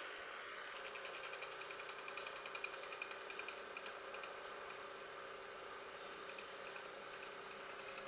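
Vertical milling machine running as a ball end mill is fed down into the edge of a round bar, cutting a half-hole for a bolt-hole pattern. The spindle gives a steady hum, with a fast, light ticking from the cut that comes and goes.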